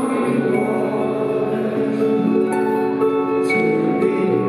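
Live rock band music played through an arena PA, heard from the stands: sustained chords with long held notes changing every second or so.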